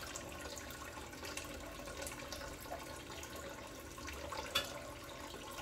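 Kitchen tap running steadily into a stainless steel sink while dishes are washed by hand, with a few faint knocks of a plastic bowl and plate, one a little louder about four and a half seconds in.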